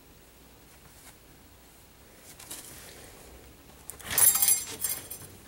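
Quiet room, then about four seconds in a sudden loud burst of rustling and clatter, about a second long, as an Italian greyhound leaps and snatches at a feather duster.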